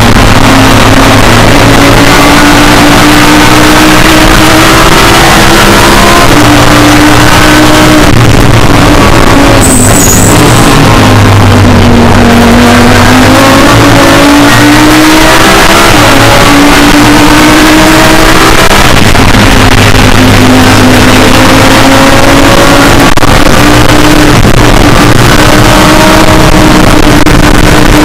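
Audi R8 LMS GT3 race car's V10 engine heard from inside the cockpit at racing speed, pulling hard through the gears. Its pitch drops under braking about ten seconds in, then climbs again as the car accelerates.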